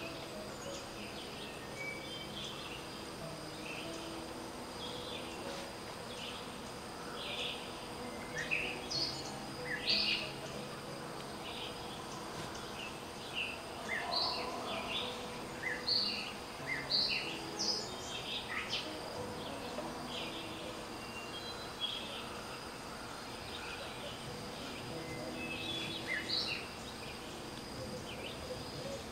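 Woodland ambience: birds chirping in many short calls scattered throughout, over a steady high-pitched insect drone.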